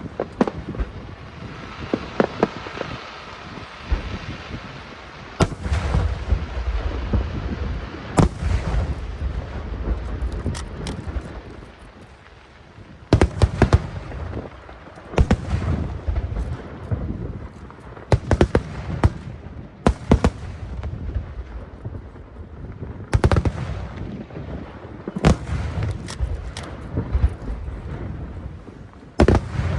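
Large aerial fireworks shells bursting one after another, a sharp boom every second or two with crackling in between.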